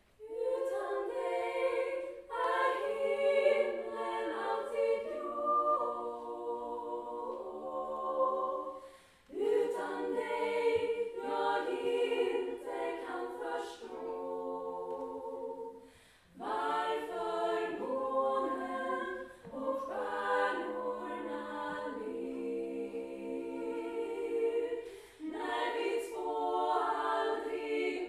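Women's choir of eight voices singing unaccompanied in harmony. The song goes in long phrases, with three short breaks between them.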